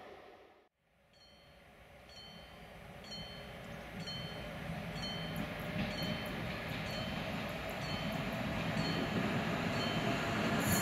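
Level crossing warning bell dinging about once a second as an HŽ 1142-series electric locomotive hauling passenger coaches approaches, its rumble growing steadily louder.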